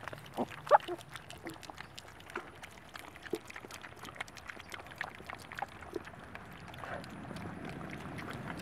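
Piglets eating grass and hay close up: a quick run of small crunching clicks from chewing and rooting, with short soft grunts, the loudest and highest a brief grunt about a second in. Near the end a steadier low snuffling noise builds.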